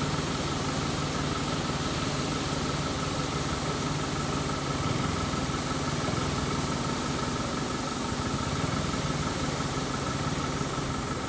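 Vehicle engine idling steadily: a low, even hum with a thin, steady whine above it.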